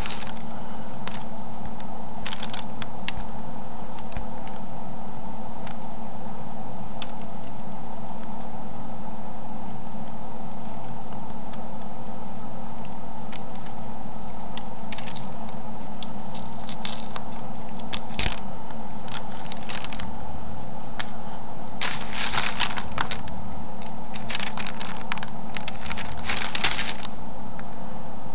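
Freezer paper crackling and rustling in short, scattered bursts as it is peeled off a painted rock, busier in the second half, over a steady low hum.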